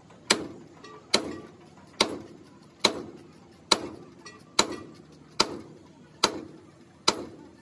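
Hammer blows on a handled tool held against a steel truck frame rail: nine sharp metallic strikes at a steady pace, a little under one a second, each ringing briefly.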